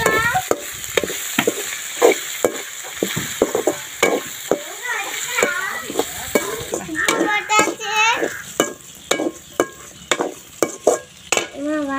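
Snails in their shells frying in hot oil in a metal pan, sizzling, while a spoon stirs them with repeated scrapes against the pan and clicks of shell on shell.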